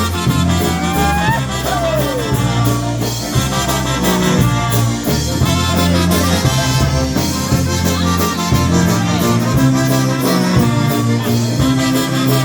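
Live polka band playing an instrumental break between the sung verses of a waltz-time song, over a steady, evenly repeating bass beat.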